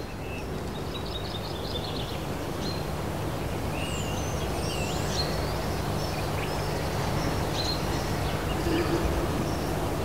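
Outdoor ambience: birds chirping and calling, with a quick trill about a second in and slurred whistles around the middle, over a steady low hum that slowly grows louder.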